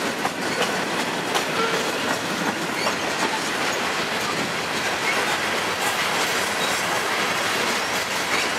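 Freight train of covered hopper cars rolling past close by: a steady rumble of steel wheels on rail, with the clickety-clack of wheels crossing rail joints.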